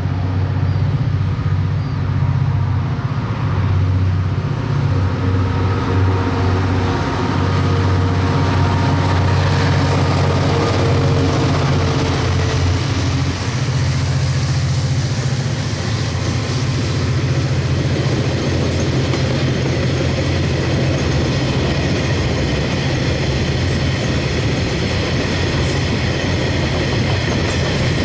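Diesel-hauled freight train passing: a locomotive's diesel engine runs loudly for roughly the first half. It gives way to the rolling rumble and clickety-clack of wagons over the rail joints.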